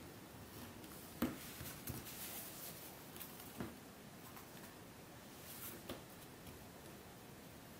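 Faint scratching of a small craft knife blade cutting along the edge of a black sheet on a cutting mat, with a few light clicks and taps, the sharpest about a second in.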